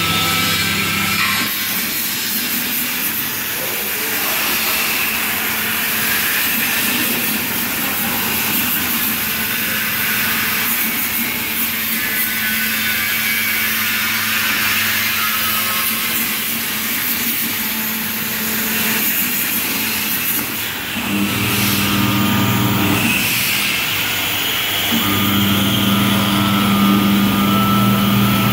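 CNC plasma cutter torch cutting carbon steel sheet at 63 A: a steady hiss of the plasma arc and its cutting air. A low machine hum comes and goes in the last third.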